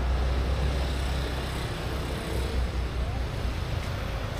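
Steady low rumble of outdoor background noise, heaviest in the first couple of seconds, with faint distant sounds over it.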